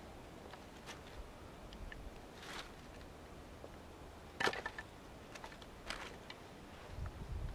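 Sticks being handled among wood shavings and dry leaves: a few light wooden clicks and knocks with a little rustling. The sharpest knock comes about four and a half seconds in, with several lighter clicks just after.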